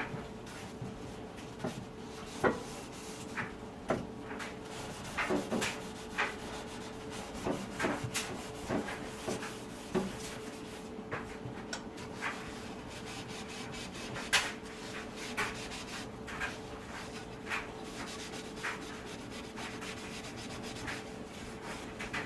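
Scrubbing the outside of a toaster oven by hand: irregular rubbing and scraping strokes with sharp clicks, over a faint steady hum.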